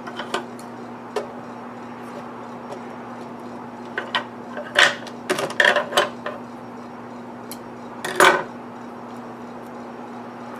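Small hard clicks and clatter of tools and light-fitting parts being handled during wiring work: a few isolated clicks, a busy cluster of rattling about four to six seconds in, and the loudest rattle a little after eight seconds, over a steady low hum.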